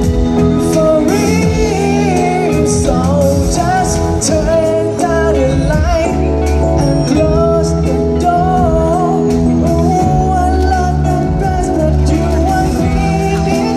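A song: a smooth singing voice carries a wavering melody over instrumental backing with a steady bass.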